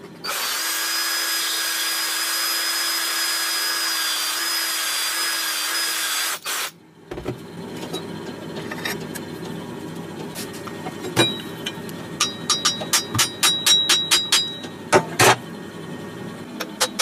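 An electric power tool runs steadily with a whine for about six seconds and then stops. It is followed by scattered sharp clicks that turn into a quick, regular run of taps, about four a second, near the end.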